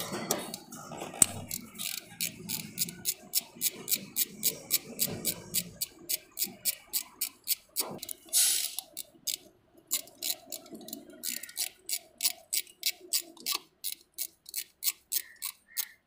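Ratchet wrench clicking in a steady rhythm, about three to four clicks a second, as a bolt by the timing chain of a Suzuki Swift engine is turned out. A brief louder rustle about eight seconds in.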